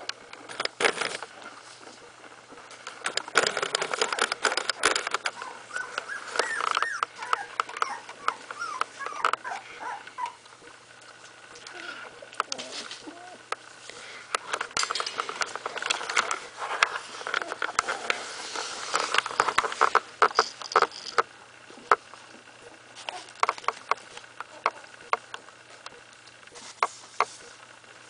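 Sixteen-day-old puppies whimpering and squeaking in thin cries that rise and fall, most of them in the first half. Scratching and rustling run throughout as they crawl over fleece and newspaper.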